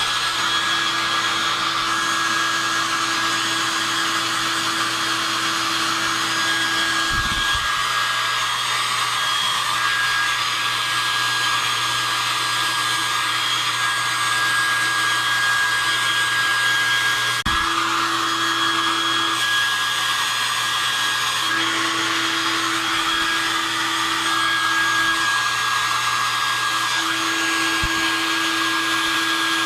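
Handheld hair dryer blowing steadily, heating a sneaker's cloudy mesh netting to clear the fogging. A faint hum within its sound drops out and comes back a few times.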